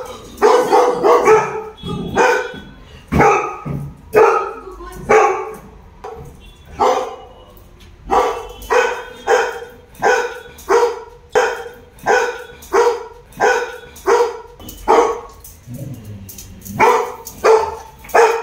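Golden retrievers barking in a long run of short, loud single barks, about one to two a second, with brief lulls about six seconds in and again near fifteen seconds. This is alarm barking at a stranger in a Santa costume.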